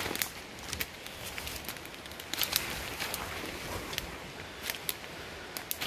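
Footsteps crunching through dry leaf litter and sticks on a forest floor, with twigs snapping and stems brushing past: scattered sharp cracks over a steady hiss.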